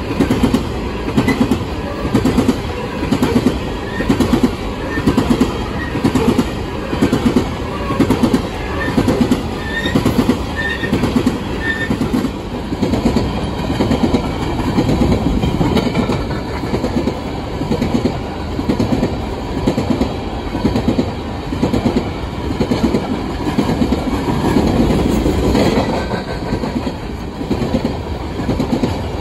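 Aluminum coal gondolas of a freight train rolling past close by: a steady rumble of steel wheels on rail, with clickety-clack clatter from the wheels over rail joints repeating about once a second.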